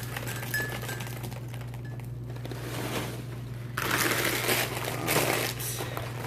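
Dry cereal pieces poured from the bag into a bowl: a rattling, rustling rush from about four seconds in, lasting about two seconds, over a steady low hum.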